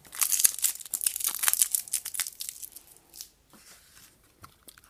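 Thin clear plastic bag crinkling and crackling as it is handled. The crackles are dense for about two and a half seconds, then thin out to a few faint ticks.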